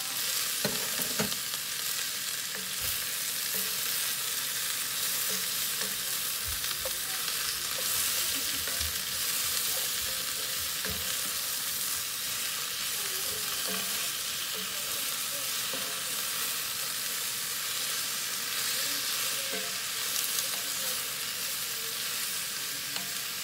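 Shredded chicken, asparagus and carrots sizzling in a cast-iron skillet while a wooden spoon stirs and scrapes through them. There are a few knocks in the first second or two as the chicken is scraped off a plate into the pan.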